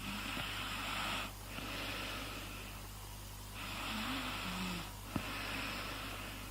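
Snoring: slow, regular breaths in and out, each with a noisy rasp, about two full breaths. A steady low hum runs underneath, and there is a single short click about five seconds in.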